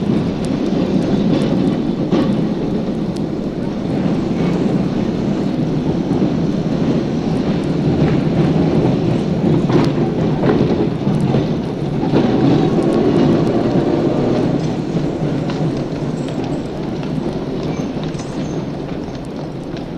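Street traffic of trams and horse-drawn drays: a heavy, steady rumble of trams running on their rails, with scattered clatter and knocks throughout and a faint whine about halfway through.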